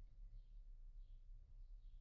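Near silence: a steady low hum, with a few faint high chirps scattered through it.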